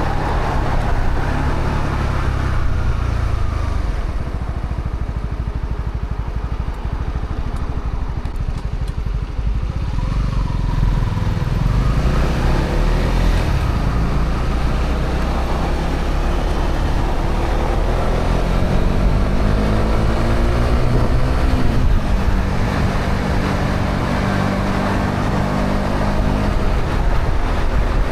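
Honda CB125R's single-cylinder four-stroke engine running through its stock exhaust while riding: the revs ease off and settle lower for several seconds, then climb again as the bike accelerates, over wind and road noise.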